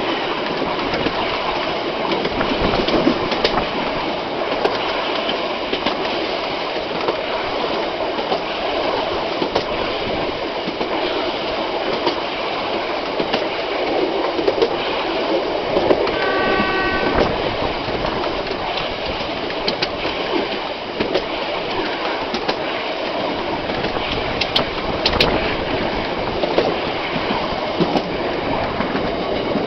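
Heritage passenger train running along the rails, a steady rumble with wheels clicking over rail joints. About halfway through the locomotive sounds one short signal blast.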